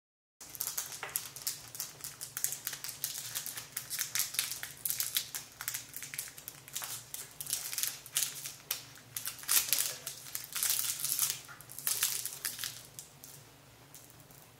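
Clear plastic cookie bags crinkling in the hands in quick, irregular crackles as iced cookies are packed into them. The crinkling thins out near the end.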